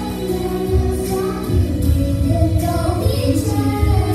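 Young girls singing a song together into microphones, their voices amplified over an instrumental accompaniment with a pulsing bass and drum beat.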